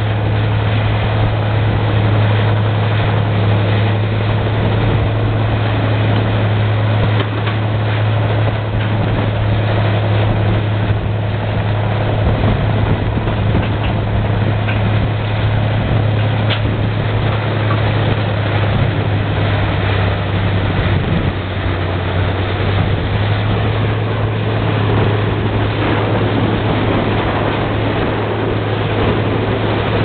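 Large tracked woodchipper running under load: its engine holds a steady low drone while brush is fed in and shredded, with a dense grinding rush and a few sharp cracks of wood breaking.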